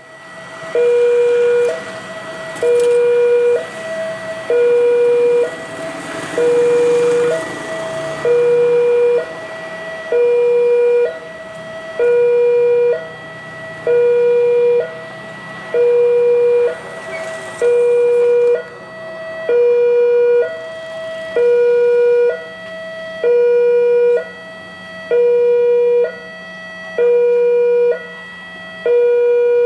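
Railroad level-crossing electronic warning alarm from a pole-mounted loudspeaker horn. It repeats a two-tone call about every two seconds, a short higher note then a longer, louder lower note, warning that a train is coming.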